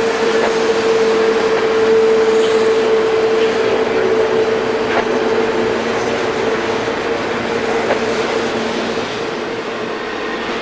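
A train rolling past with a steady noise of wheels on rail and a sustained high tone that fades after about six seconds.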